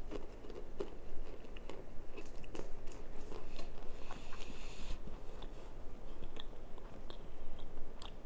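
A person biting and chewing a chunk of cornstarch brick kept in the freezer, a run of sharp, crackly crunches as the hard starch breaks up in the mouth.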